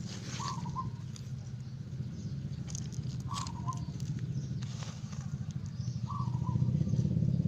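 A small engine running steadily in the background, getting louder near the end, with a bird giving a short two-note call three times, about every three seconds.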